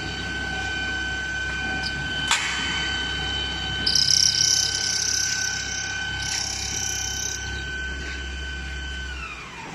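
CNC pipe drilling machine's spindle running with a steady whine over a low hum, with a sharp click a little over two seconds in. From about four seconds in a harsh high-pitched noise comes in for some three seconds as the drill cuts the metal pipe dry, and near the end the whine falls in pitch as the spindle slows down.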